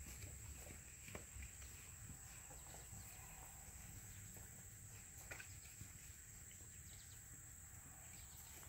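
Near silence outdoors: a steady, high insect drone, like crickets or cicadas in summer grass, over a faint low rumble and a few soft ticks.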